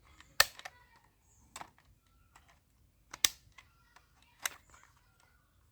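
Airsoft pistol firing single shots: four sharp clacks spaced roughly a second apart, the first the loudest.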